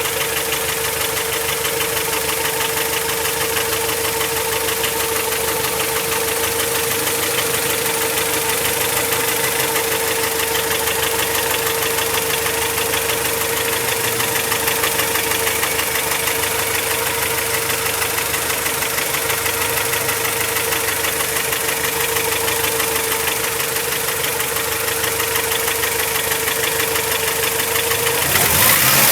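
Honda Prelude's H22A 2.2-litre DOHC VTEC four-cylinder engine idling with a fast, even ticking-knock and a steady whine over it. This is a terrible noise, which the owner takes for the sign of a dying engine at 137k miles. A brief rev rises and falls about a second before the end.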